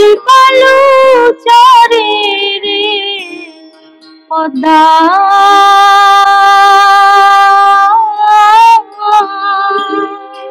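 A Bengali folk song: long held, gently wavering melodic notes over a steady low drone, with a brief lull of about a second near the middle.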